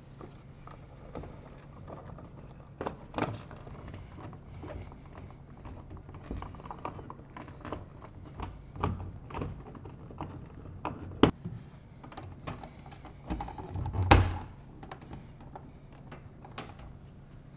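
Handling noises of a Lutron Sunnata Pro dimmer going into its wall box: scattered small clicks, knocks and scrapes as it is pushed in and screwed to the box with a screwdriver, then the plastic wall plate fitted over it. A sharp click comes about eleven seconds in and the loudest knock about fourteen seconds in.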